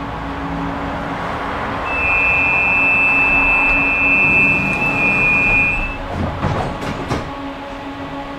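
Tram running noise heard from inside the passenger car, with a steady high-pitched squeal from about two seconds in that lasts some four seconds, then a few sharp knocks near the end.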